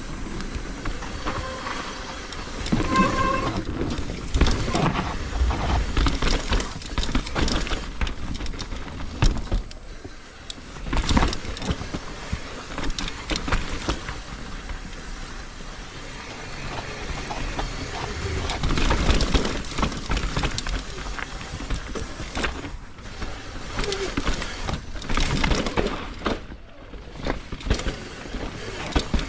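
Mountain bike riding fast down a rough trail. The tyres roll and bump over dirt, rocks and a wooden boardwalk, the bike rattles with many small knocks over the bumps, and wind rumbles on the camera microphone.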